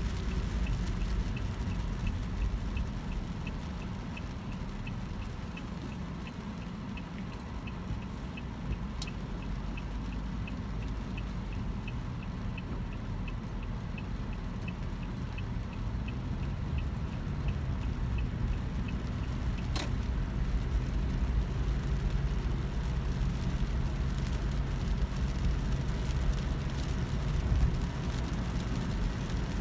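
Car heard from inside the cabin: the engine runs steadily while a turn-signal indicator ticks about two to three times a second, stopping about twenty seconds in. After that the engine note rises and grows louder as the car pulls away.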